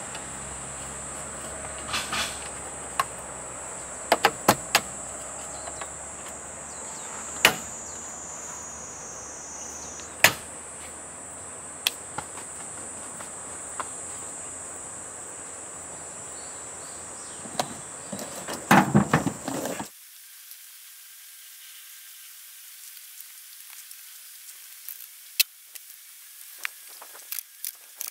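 A steady high insect drone with scattered sharp taps and knocks from hand work on the camper's wall, and a louder run of knocks a little after two-thirds through. About 20 seconds in the drone cuts off abruptly, leaving a quieter background with light ticks.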